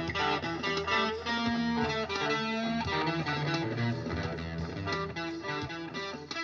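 Electric guitar played through overdrive, boost and delay/reverb effects pedals: a continuous run of changing single notes and chords.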